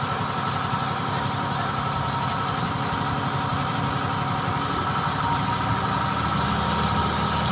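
Engine of the crane lifting the camel, running steadily with no change in speed, with a thin steady whine above it.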